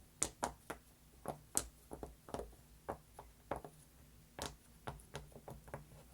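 Silicone octopus pop-it fidget toy being popped: a string of soft, sharp pops as the bubbles are pressed through one after another, irregular at about two or three a second, with a brief pause a little after the middle.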